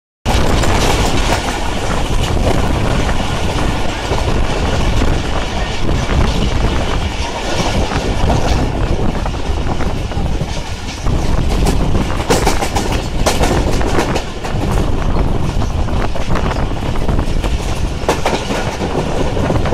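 Pakistan Express passenger coach in motion, heard from its open doorway: a loud, steady running rumble of wheels on track and rattling coachwork, with sharp clicks as the wheels pass rail joints, clustered about twelve to fourteen seconds in.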